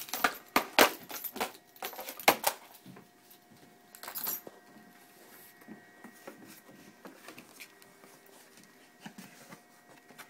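Cardboard box packaging being opened by hand: a quick run of sharp cracks and crackles in the first couple of seconds as the taped cardboard is slit and pulled apart, a scraping rustle about four seconds in, then faint light handling of the flaps.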